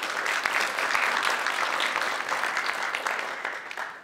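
Audience applauding, a dense spatter of many hands clapping that fades out near the end.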